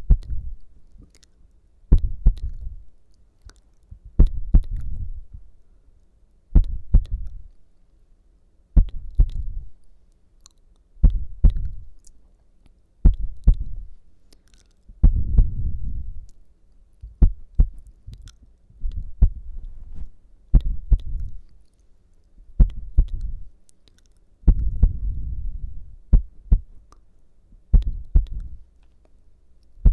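Simulated ASMR heartbeat: low, dull thumps about every two seconds, each trailing off in a short low rumble.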